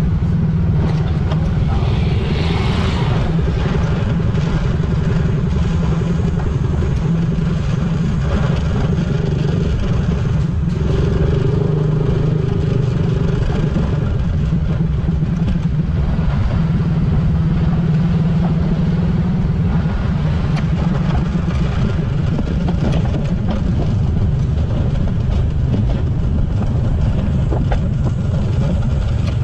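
Motorcycle under way on the road: engine running steadily with road noise, with no pause.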